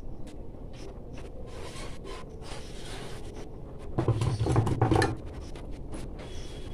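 Metal hand tools clattering on a workbench for about a second, about four seconds in, as a hand rummages through a pile of pliers. Light clicks from handling a sewing machine motor's end cover sound over a steady low hum.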